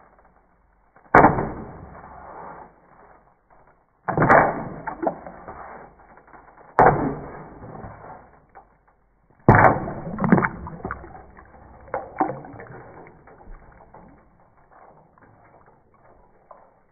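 Wooden spoon striking a block of ice floating in a bucket of water, breaking it up. About six hard blows a few seconds apart, each followed by splashing, then only lighter taps near the end.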